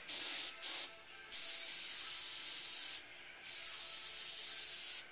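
Airbrush spraying paint, its air hiss switching on and off with the trigger: two brief puffs, then two longer sprays of about a second and a half each with a short pause between.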